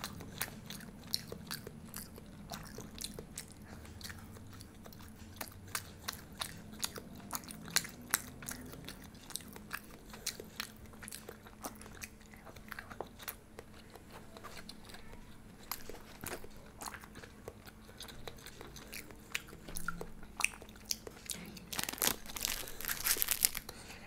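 Close-miked eating: chewing and biting, with many crisp crunching clicks, and a louder, denser burst of crunching about two seconds before the end.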